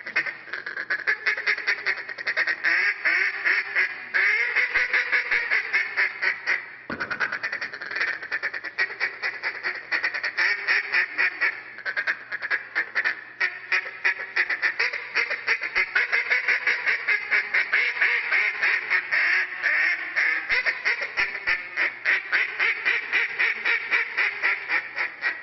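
Duck call blown in a live-duck-style calling routine: a fast, nearly continuous run of quacks and chatter, broken once by a short pause about seven seconds in.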